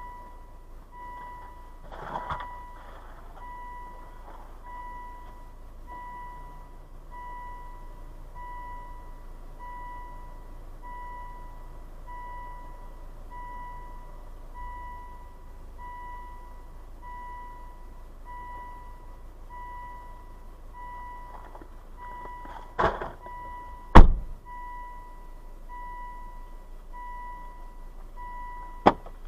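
A car's warning chime beeping steadily over and over, as when a door is left open, over a low engine hum. A few thuds break in, one near the start and several near the end, the loudest about four-fifths of the way through.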